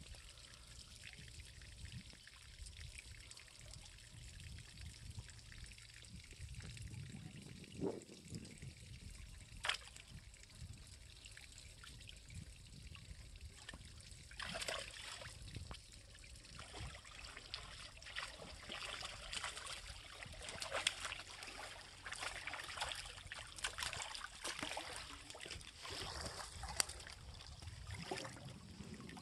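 Water trickling and splashing around a person wading in shallow water. From about halfway through there is a run of repeated splashes as a hooked eel is hauled up through the water on a handline.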